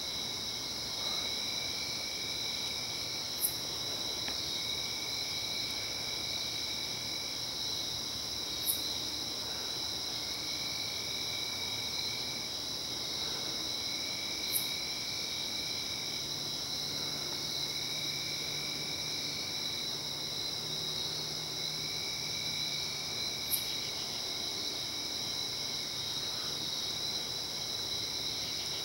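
Night chorus of crickets and other insects: a steady high trill, with a lower trill that starts and stops every few seconds and four sharp, very high chirps scattered through.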